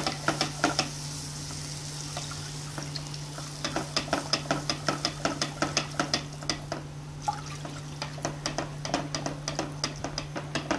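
A utensil stirring milk into a butter-and-flour roux in a pan on high heat, clicking and scraping against the pan in quick spells of about three or four strokes a second, with faint sizzling and a steady low hum underneath.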